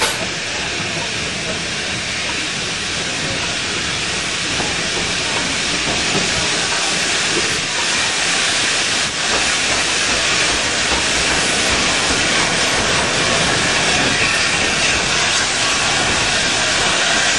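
Steam locomotive and train on the move: a steady hiss of steam with the running noise of the wheels on the track, slowly growing louder.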